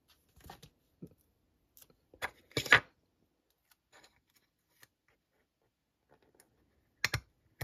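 Hands handling a small plastic toy piece while pressing a sticker onto it: scattered light clicks and rustles, with louder ones about two and a half seconds in and again near the end.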